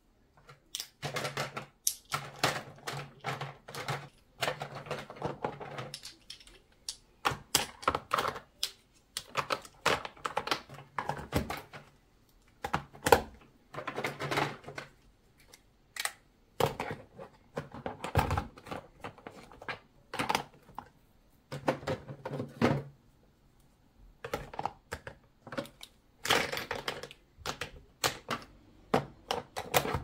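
Plastic and glass makeup items clicking and knocking as they are picked out of an acrylic drawer organizer and set into the divided compartments of a padded makeup case, in irregular runs of taps and clatter with brief pauses.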